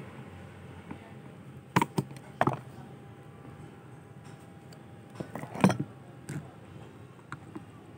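A few sharp metallic clicks and taps of a screwdriver and metal parts as a distributor is taken apart by hand: two close together about two seconds in, another just after, and the loudest about five and a half seconds in, over a faint low background rumble.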